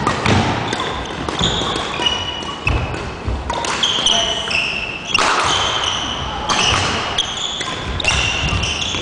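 Badminton rally: court shoes squeaking on a wooden gym floor, many short high squeaks, with thudding footfalls and sharp taps of rackets striking the shuttlecock.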